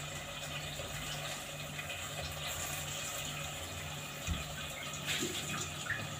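Pot of potato and carrot stew simmering on a gas burner: a steady watery hiss with a low hum under it, and one small knock about four seconds in.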